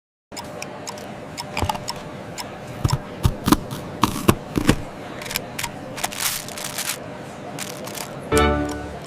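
Foley of a small package being opened: irregular sharp clicks and snips, with a short rustling tear about six seconds in. Near the end comes a short pitched sound.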